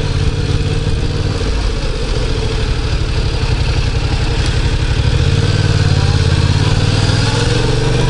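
Yamaha MT-07's parallel-twin engine running while riding in traffic, with wind and road rush over it; the engine pulls a little harder about five seconds in.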